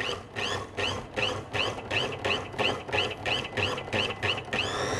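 Small electric food processor pulsed in short bursts, about three a second, each a brief rising motor whine, as it chops cold butter with herbs and seasonings. Near the end the motor switches to running continuously, its whine climbing to a steady pitch.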